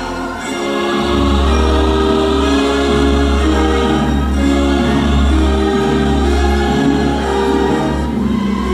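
Show soundtrack over loudspeakers: a choir singing held chords with orchestra, and a deep bass that comes in about a second in.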